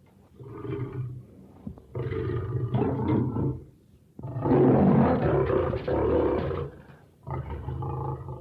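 Lion roaring in four bouts with short pauses between, the third, about halfway through, the longest and loudest.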